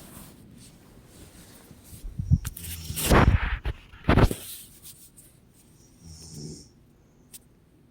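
A woman snoring in her sleep, the animal-like snores likened to a monkey's: three loud, rough snores close together in the middle, then a fainter one a little later.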